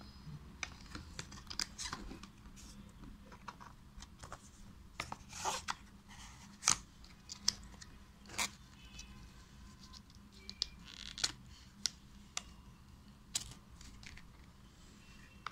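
Small paperboard product box being handled and its end flap worked shut: scattered rustles, scrapes and light taps of card, the loudest near the middle.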